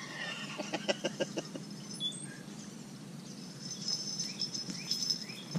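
Lakeside outdoor ambience: insects trilling steadily, with a few short bird chirps. A quick run of soft clicks about a second in.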